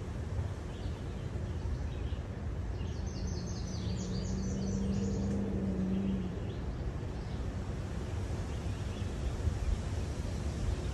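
Low, steady road and wind rumble of a car driving slowly along a park road. A bird sings a quick run of high notes about three seconds in, and a steady low hum joins for a few seconds in the middle.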